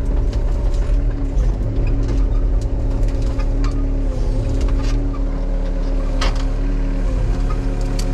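Case tracked excavator's diesel engine running steadily under working load, with scattered sharp cracks and knocks over it, the loudest about six seconds in.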